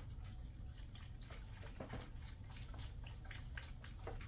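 Chicken broth being poured into a cooking bag in a slow cooker, faint liquid drips with small scattered ticks, over a steady low hum.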